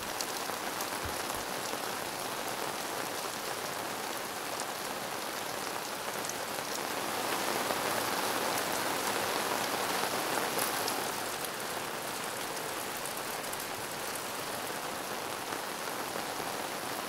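Steady rain falling on a fabric vehicle awning and truck camper, a little louder for a few seconds midway.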